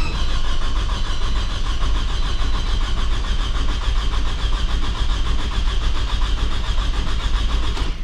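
2006 Toyota RAV4's four-cylinder engine cranking on the starter with the ignition coils disconnected, so it turns over in a fast rhythmic 'ti ti ti' without firing, and cuts off near the end. The cranking rhythm is not steady, which the mechanic takes as a sign that one cylinder, likely number 3, is losing compression.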